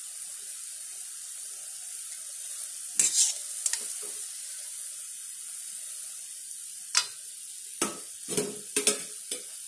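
Sweet seedai, small rice-flour dough balls, deep-frying in hot oil in a steel kadai, with a steady sizzle. A slotted steel spoon clinks and scrapes against the pan as the golden balls are stirred and scooped out: a few knocks about three seconds in and a cluster of them near the end.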